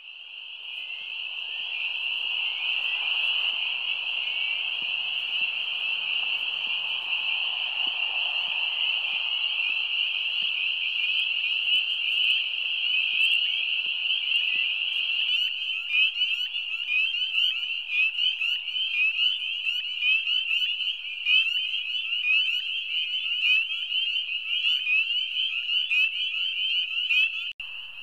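Spring peepers calling in full chorus: a dense wall of short, high-pitched, rising peeps. It swells up over the first few seconds, and individual peeps stand out more clearly in the second half.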